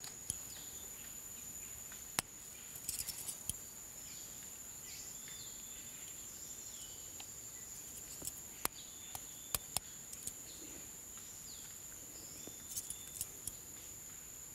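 A steady high-pitched insect drone with short falling bird-like chirps. Scattered sharp clicks and quick clusters of taps come from a knife blade working against a plastic landmine's casing and pressure cap.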